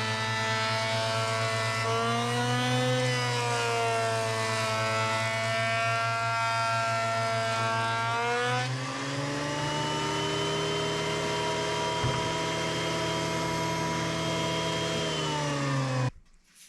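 A motor running steadily, its pitch drifting up and then settling lower, cut off abruptly near the end.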